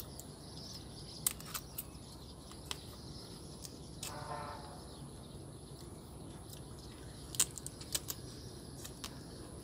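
Quiet background with a faint steady hiss and high thin tone, broken by scattered sharp clicks and taps, a cluster of them near the end, and a faint voice briefly about four seconds in.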